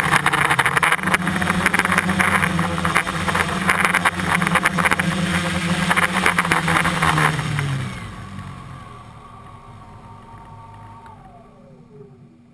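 Multirotor drone's electric motors and propellers buzzing right beside the on-board camera's microphone, with rough wind noise from the prop wash. About seven and a half seconds in the motors spin down, the buzz falling in pitch and fading, and a faint whine glides down near the end.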